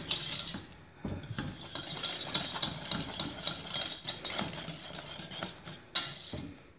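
Wire balloon whisk scraping and clinking against the sides and bottom of a stainless steel pot while stirring thickened pastry cream, with a brief pause about a second in and a sharper clink near the end.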